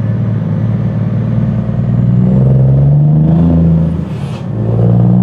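Scania truck engine heard from inside the cab, pulling away and accelerating, its note rising. About three and a half seconds in there is a short hiss and the engine note dips briefly, as at a gear change, then it pulls and rises again.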